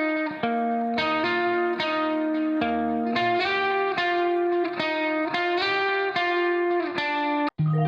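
Background music: a plucked guitar track playing repeated notes at a steady pulse, cutting out for an instant near the end.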